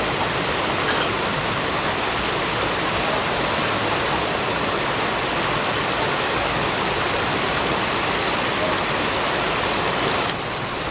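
Steady rushing of river water flowing over rocks where two streams meet.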